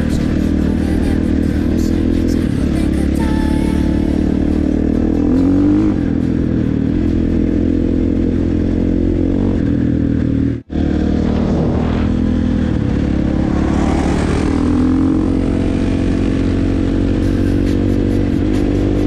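Dirt bike engine running under throttle while riding, with the revs rising briefly a few times. The sound cuts out for an instant about ten seconds in.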